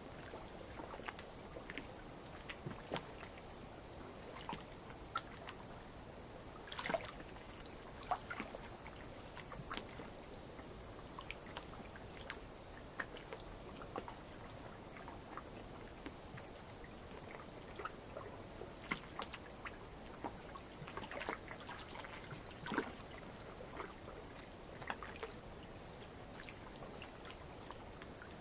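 Night insects keeping up a steady high-pitched chorus, with light waves lapping and splashing on lava rock in short, irregular splashes.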